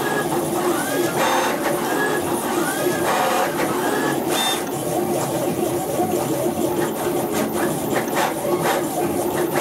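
Stepper motors of a CNC router printing in 3D, whining as the axes move. Short tones rise and fall with each move over a steady hum, giving way to quick clicking ticks in the second half.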